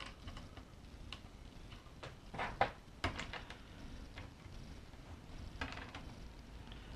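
Light, scattered clicks and taps of small metal hardware being handled, as 1/4-20 T-nuts are fitted onto the bolts, with a small cluster of knocks about two and a half seconds in and again near six seconds.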